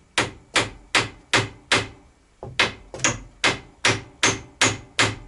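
Hammer driving nails into wooden laths, about three even blows a second with a short pause a little before halfway.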